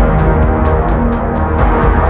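Background music with sustained low tones and a steady ticking beat, about four ticks a second.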